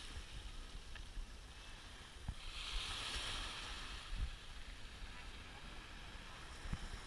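Small waves washing onto a sandy beach, one wash swelling about three seconds in, with a low rumble of wind on the microphone.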